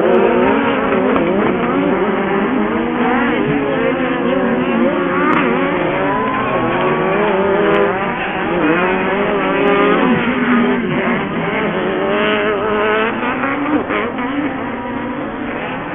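Several Pro Buggy off-road race buggy engines revving on the track at once, their pitches rising and falling and overlapping as they accelerate and shift.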